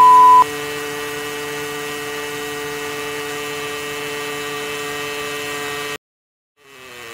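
Cartoon motorcycle engine sound effect: a steady, even drone. A loud pure beep tone sounds over it and ends about half a second in. The drone cuts off suddenly about six seconds in, and a sound falling in pitch fades in near the end.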